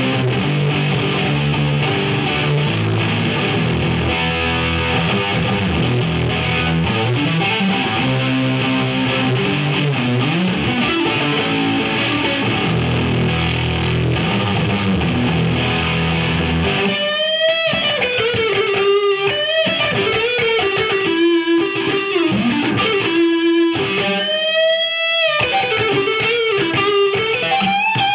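Electric guitar played through a Marshall JVM410 valve amp with distortion: sustained heavy chords, then, a little past halfway, a single-note lead line with bends and vibrato.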